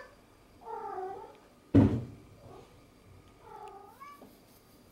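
Domestic cat meowing twice, about a second in and again more faintly near four seconds, with a loud, sharp thump just before two seconds.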